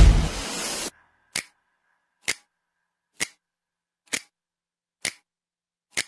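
Background music that cuts off about a second in, followed by six sharp single clicks at an even pace, a little under a second apart, with dead silence between them.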